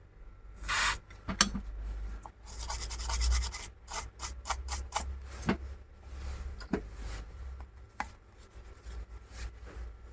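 Scraping and rubbing on an LED lamp's circuit board in a series of short strokes with a few sharp clicks, cleaning the surface to expose the two solder pads.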